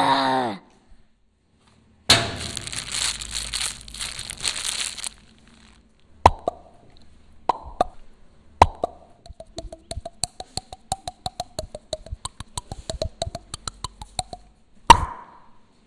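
Crisp, thin flatbread crackling and crunching as it is broken up. Then come a few separate sharp snaps, which quicken into a run of rapid small clicks with a faint held high note behind them. One loud snap comes near the end.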